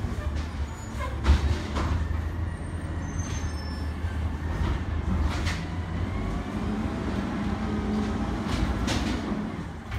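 Garbage truck running, with a steady low engine rumble, a few sharp knocks, and a faint whine that shifts in pitch in the second half.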